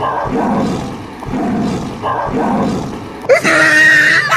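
Lion roar sound effect: a run of low, growling roars, about one a second, standing in for the toy lion's voice. About three seconds in, a loud, high-pitched cry cuts in over it.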